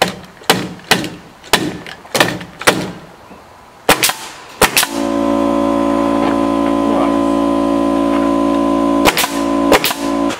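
Pneumatic nail gun firing nails through a rough-sawn wooden trim board: about eight sharp shots in the first five seconds, irregularly spaced. Then a steady loud motor hum of constant pitch starts and runs on, with three more nailer shots over it near the end.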